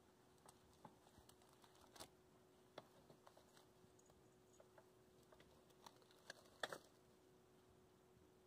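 Faint, scattered light taps and rustles from a cat moving about among pans and plastic bags inside a kitchen cabinet, with a slightly louder cluster of clicks near the end.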